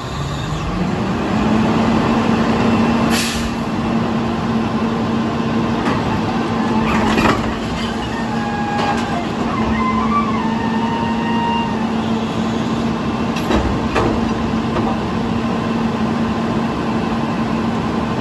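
Diesel engine of a Heil front-loader garbage truck with a Curotto Can arm: it revs up just after the start and holds a steady, higher speed. Several brief, sharp sounds come over it, about three, seven and fourteen seconds in.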